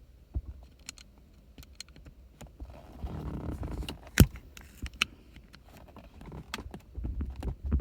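Handling noise and scattered small clicks of hard parts being worked on an Audi A7 gear shift knob, with one sharp, loud click about four seconds in.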